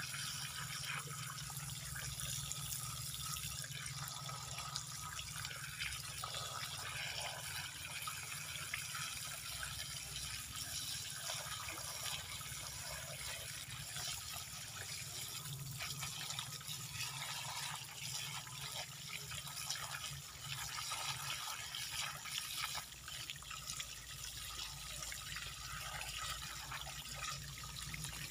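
Water running steadily from a hose and splashing onto the rock and soil of a rock-planted bonsai, with a low steady hum underneath.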